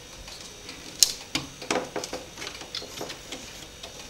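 Light plastic clicks and taps from the PC case's 5¼-inch drive-bay covers being handled, a handful of small knocks starting about a second in.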